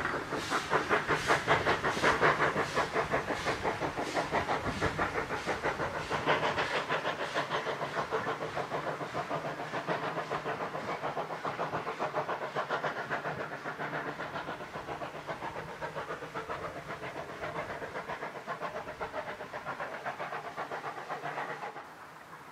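Steam locomotive working hard as it hauls a train of carriages away, its exhaust chuffing in a fast, even rhythm that slowly fades with distance and cuts off near the end.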